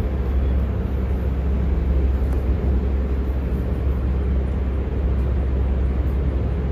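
Steady low rumble that holds at one level throughout, with no distinct events.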